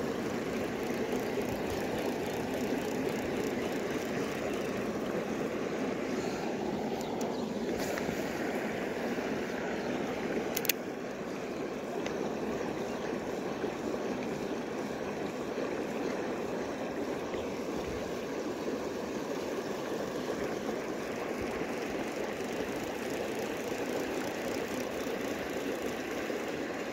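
Steady rush of creek water flowing over rocks, with a single sharp click about ten seconds in.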